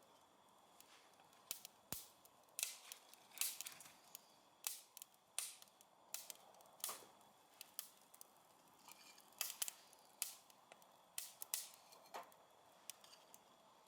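Wood fire crackling: irregular sharp pops and snaps, a dozen or more, some in quick pairs, over a faint steady hiss.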